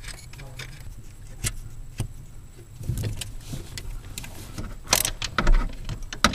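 Socket wrench and metal tools clicking and clinking as the nuts holding a Hydro-Boost brake booster to the firewall are run down and tightened. Scattered sharp metallic clicks, with a denser cluster near the end, over a low steady hum.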